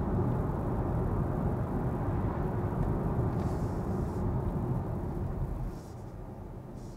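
Road and tyre noise inside the cabin of a Kia EV6 electric car, fading as the car slows under regenerative braking in iPedal one-pedal mode. It drops noticeably about six seconds in.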